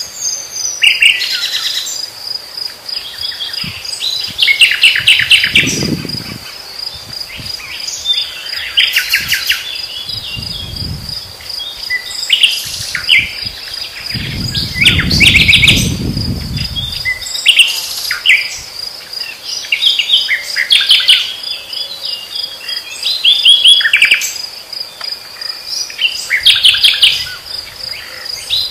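Nightingales singing in phrases of rapid repeated notes over the steady high chirping of crickets. A brief low rumble comes in a few times, the longest about halfway through.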